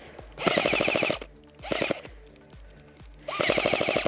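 Airsoft MP5 electric gun firing three full-auto bursts in quick rattles: a long one, a short one, then another long one.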